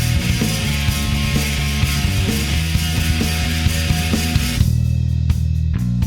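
Rock music with drums and distorted guitar; the full band drops out about four and a half seconds in, leaving sparse hits.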